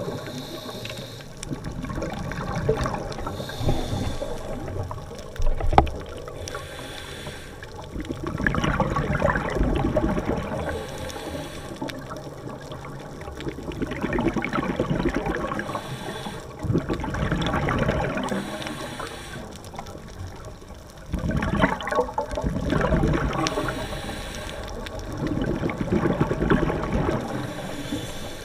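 Scuba diver breathing underwater through a regulator: short hissing inhales alternating with longer bursts of bubbling, gurgling exhalation, repeating over several breaths.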